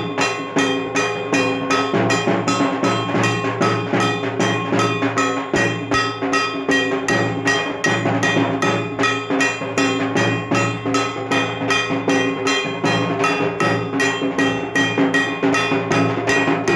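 Dhak, the Bengali barrel drum of Durga Puja, beaten in a fast, steady rhythm of about four strokes a second, with steady ringing tones sounding underneath.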